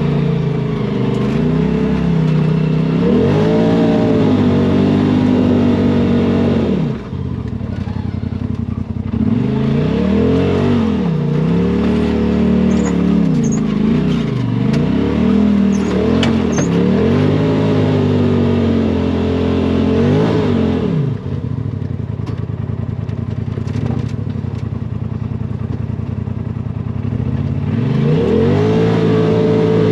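Side-by-side UTV engine revving up and down over and over as the throttle is worked, its pitch rising and falling every couple of seconds, with a short let-off about seven seconds in and again about two-thirds of the way through.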